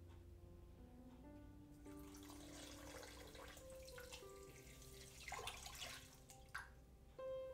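Water pouring from a glass carafe into a pot over dried flowers and citrus slices: a splashing trickle that starts about two seconds in and stops shortly before the end. Soft background music with plucked notes plays throughout.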